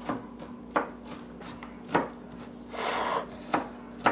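Homemade slime being squeezed and played with in the hands, giving three sharp clicks and a brief squishy rustle about three seconds in.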